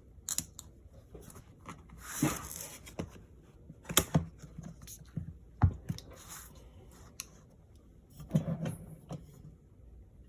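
Hands handling a laptop and its charging cable: scattered sharp clicks and taps, with a brief rustle about two seconds in and the two loudest clicks about four and five and a half seconds in.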